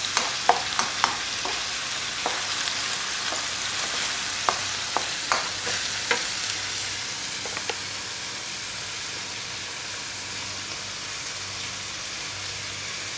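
Chicken pieces with diced onion and garlic sizzling steadily in oil in a wok, browning. A wooden spatula clicks and scrapes against the pan through roughly the first eight seconds as the food is stirred, after which only the sizzle goes on.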